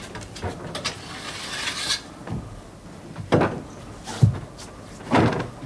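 Rustling and scraping at a wooden cupboard as its door is opened and something is taken out, then three dull thumps about a second apart.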